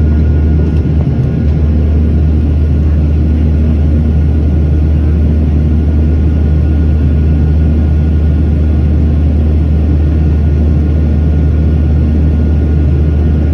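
Steady cabin noise of a Boeing 737-700 climbing out after takeoff, heard from a seat over the wing: the deep rumble of its CFM56-7B turbofans, with a faint steady high whine on top.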